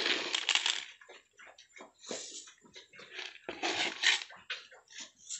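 Piglet eating feed pellets off a concrete floor: irregular short crunching and snuffling sounds, after a denser stretch of noise in the first second.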